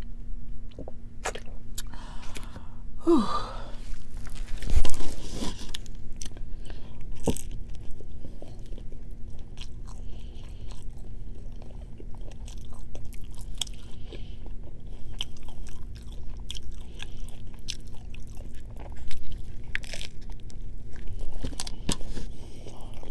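Close-up eating sounds: a person biting and chewing food, with scattered crunchy, crackling bites and a louder bite about five seconds in. A faint steady hum runs underneath.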